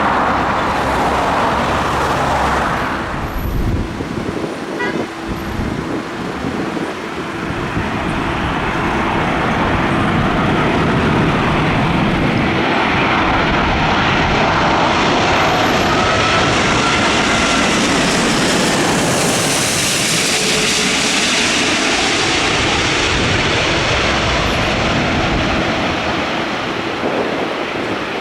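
British Airways Airbus A380 on landing approach passing close by, its four Rolls-Royce Trent 900 jet engines swelling to a loud steady rush with a faint whine sliding in pitch, then easing off near the end.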